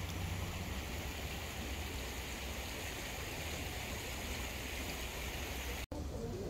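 Shallow stream flowing steadily, an even rushing of water, with a brief break near the end.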